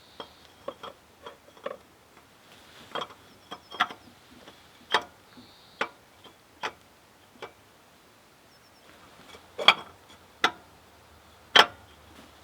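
Hand tools clicking and knocking during work on the engine's water pump and timing belt: a dozen or so irregular sharp clicks, the three loudest near the end.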